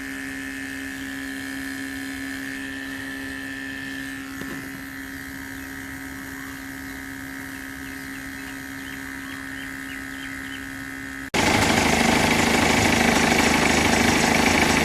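Steady mechanical hum with a couple of held tones, then an abrupt cut about eleven seconds in to a much louder, rough engine running at idle.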